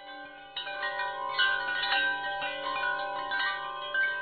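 Background music of ringing, chime-like notes, several sounding together, with new notes struck every half second or so.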